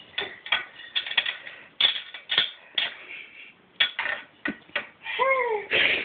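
Irregular sharp clicks and knocks from a toddler handling a cat wand toy at a wooden desk, the stick knocking against the wood and its drawer pulls. About five seconds in there is a short cry that rises and falls in pitch.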